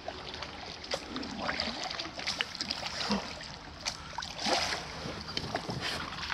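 An oar rowing an inflatable boat through river water: a swishing splash with each stroke, about every second and a half, with a couple of sharp knocks in between.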